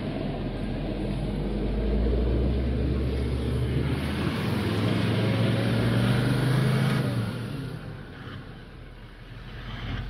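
Toyota LandCruiser 70-series 4WD engine running as the vehicle crawls through a muddy, water-filled rut, with water sloshing around the tyres. The engine note builds over the first few seconds and eases off about eight seconds in.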